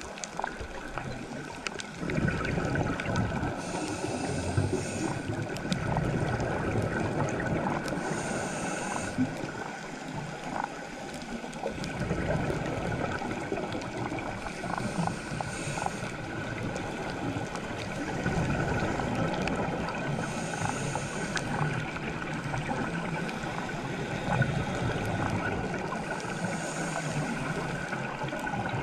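Underwater sound heard through a dive camera: a scuba diver's exhaled bubbles rush past in bursts about every five to six seconds, over a steady underwater hiss dotted with faint clicks.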